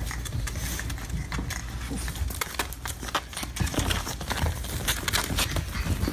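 Puppies' paws scrabbling and tapping on a rug and floor as they play: a quick, irregular run of small clicks and taps.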